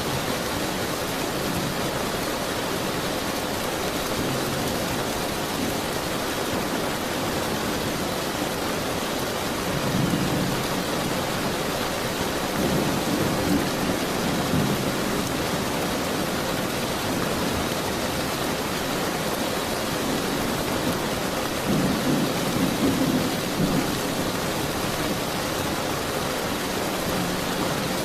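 Steady heavy rain hissing, with low rolling thunder rumbling through it three times: about ten seconds in, around twelve to fifteen seconds in, and again near twenty-two to twenty-four seconds in.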